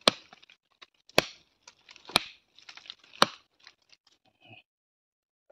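Machete blows chopping into an old, moss-covered tree stump: four sharp strikes about a second apart, each followed by a brief crackle of splintering wood. The stump is still hard inside and not yet rotted.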